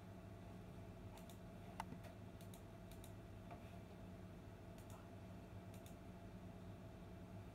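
Faint, scattered light clicks and ticks, about a dozen, the sharpest a little under two seconds in, over a steady low hum; otherwise near silence.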